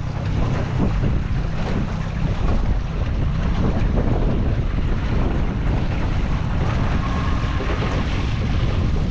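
Strong wind buffeting the microphone, a loud steady rumble, with water lapping around a boat.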